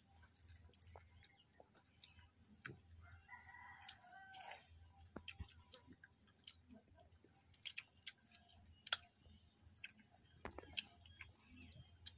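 Quiet eating by hand from steel plates: faint scattered clicks and chewing. A distant rooster crows about three to five seconds in.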